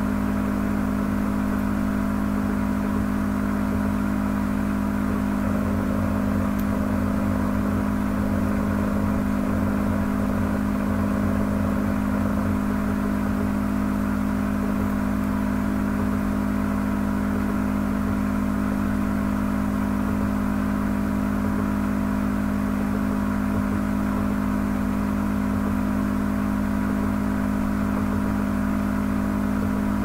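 A steady motor hum with a whir, unchanging in level throughout.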